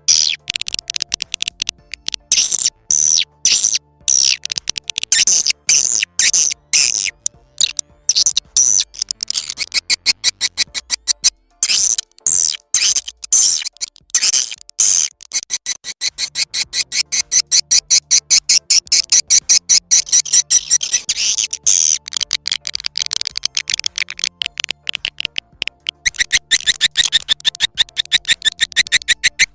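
Swiftlet lure call track: edible-nest swiftlet twittering played as a recording, rapid high chirps and clicks in quick trains. The trains are broken and choppy at first, then settle after about the halfway point into a fast, continuous twitter.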